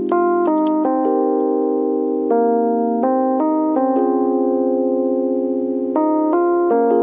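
Background keyboard music: sustained chords under a slow melody, the notes changing every half second or so at times and holding for a few seconds at others.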